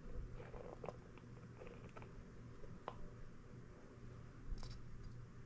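Faint small squishes and clicks of a plastic squeeze bottle squirting Mod Podge glue, with a brief crinkle about four and a half seconds in.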